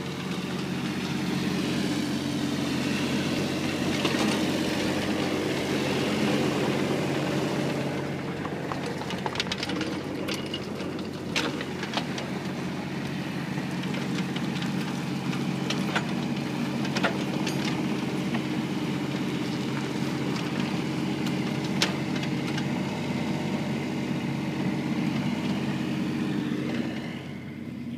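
Mini excavator's diesel engine running steadily while the machine travels on its tracks, with occasional sharp metallic clanks; the engine sound drops off about a second before the end.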